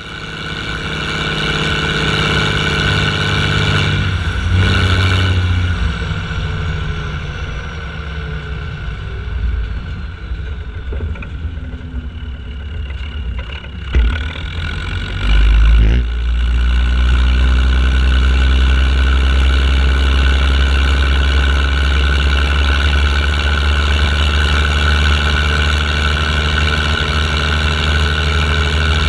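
International Harvester 1455 tractor's diesel engine running while driving, heard from on top of the bonnet just behind the exhaust stack. Its pitch falls about four seconds in, climbs back up around fifteen seconds after a short knock, then holds steady with a deep rumble.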